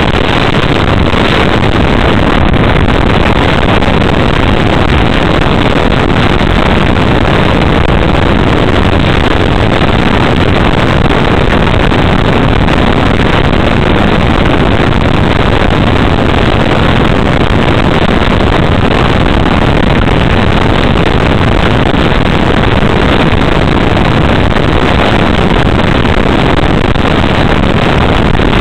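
Steady, loud rushing noise of an RC Sky Surfer electric motor glider in flight, picked up by its onboard camera: airflow over the microphone mixed with the drone of the motor, unchanging throughout.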